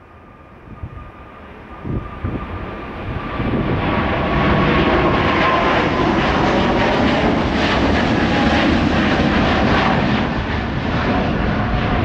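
Boeing 777-300ER's GE90-115B turbofans at takeoff thrust on a departure. The sound builds from about two seconds in and is loud from about four seconds on, with a high whine that slowly falls in pitch as the jet goes by.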